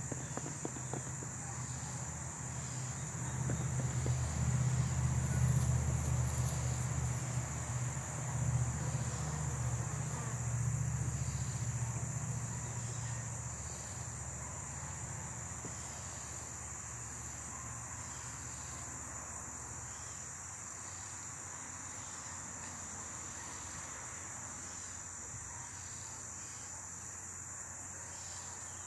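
Steady high-pitched insect chirring, with a low hum that swells about three seconds in and dies away by about fourteen seconds.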